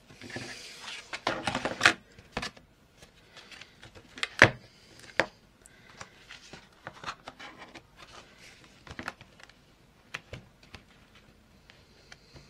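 Paper pages of a ring-bound junk journal being handled and turned: rustling in the first couple of seconds, then scattered sharp clicks and taps as the pages move on the metal rings, the loudest about four seconds in.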